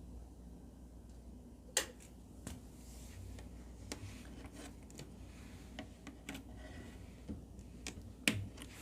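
Scattered single keystrokes on an ABKO ADK05 mechanical keyboard with Kailh Box switches: a handful of separate sharp clicks, the loudest about two seconds in and near the end, over a low steady hum.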